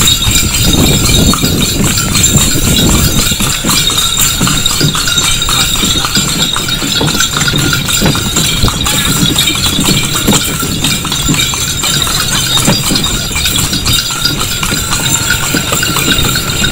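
A horse's hooves clip-clopping steadily on an asphalt road as it pulls a passenger carriage.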